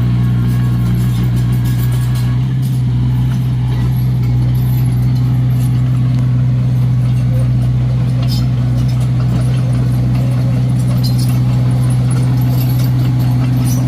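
Komatsu D21A bulldozer's diesel engine running steadily at a constant speed, with scattered light metallic clinks.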